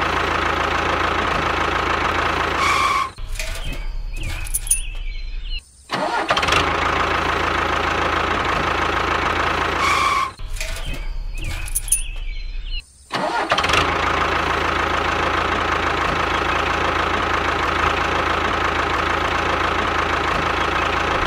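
A vehicle engine sound effect playing on a loop: an engine running steadily, broken by short gaps every few seconds where the loop restarts.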